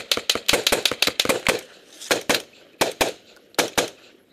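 Close-range rifle fire: a fast string of single shots, about six a second, then three quick pairs of shots. The firing stops shortly before the end.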